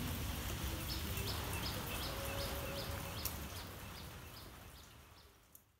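Steady rain falling on a garden, with a bird repeating a short high call about two or three times a second through the middle. The sound fades out near the end.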